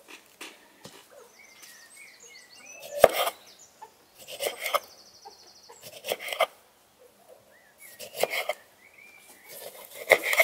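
Kitchen knife slicing through a lemon onto a wooden cutting board: five cuts, each ending in a knock on the board, the first about three seconds in and then one every second and a half to two seconds. Birds chirp faintly between the cuts.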